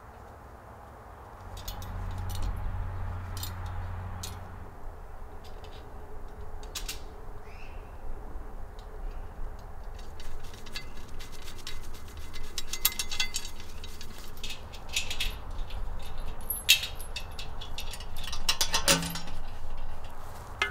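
Metal chain and steel cooking-stand parts clinking, rattling and knocking as they are handled and fitted together, in scattered sharp clicks that come thicker in the second half, with a low rumble for a few seconds near the start.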